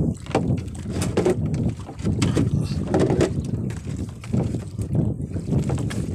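Wind buffeting a phone microphone in uneven low rumbling gusts, out on the open sea aboard a small outrigger fishing boat.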